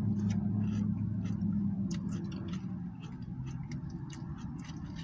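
Close-up eating sounds: chewing with irregular wet mouth clicks and smacks, several a second, over a steady low hum.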